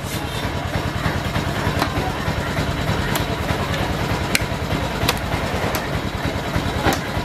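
Sharp knocks every second or so, a heavy knife striking through a large fish onto a cutting block, over a steady low rumble.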